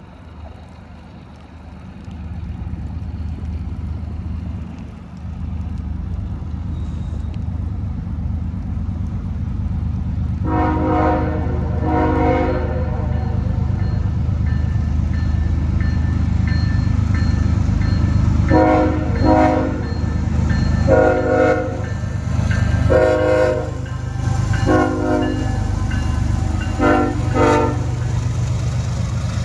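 CSX freight train approaching, its diesel locomotives rumbling steadily louder. From about a third of the way in, the locomotive horn sounds in a long series of short blasts, about nine in uneven groups.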